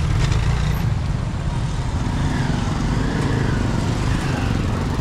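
Motor scooter engine running steadily at low speed, a low rumble with street traffic noise around it, and faint voices about halfway through.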